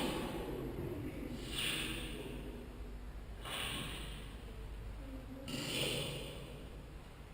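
Heavy breathing: three loud, breathy breaths about two seconds apart.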